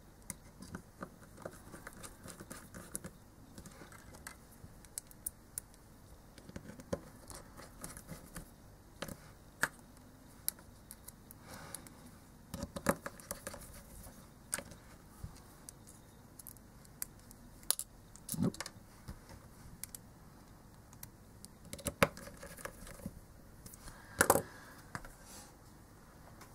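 Irregular small clicks, taps and light scrapes of tiny screws being fitted and driven in to fasten the controller circuit board back onto a Western Digital 3.5-inch hard drive, with a few louder taps in the second half.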